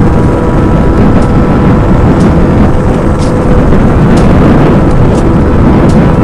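Heavy, steady wind rumble on the microphone of a motorcycle riding at speed, with a faint steady engine note underneath.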